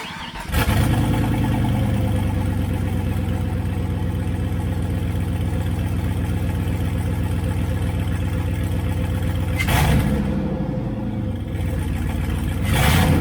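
Turbocharged 6.0 LQ4 V8 engine running at idle, revved up briefly twice, once about ten seconds in and again near the end.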